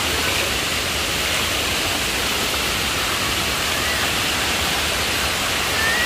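Waterfall cascade: water rushing steadily over rocks.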